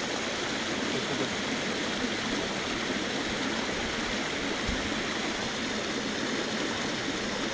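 Water pouring over rocks into a pool below a low-water bridge: a steady rush.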